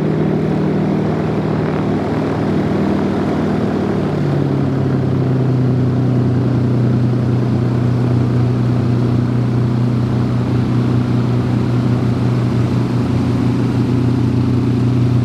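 Twin Allison V-12 piston engines of a P-38 Lightning running as it taxis, a steady drone whose note steps down a little about four seconds in and then holds.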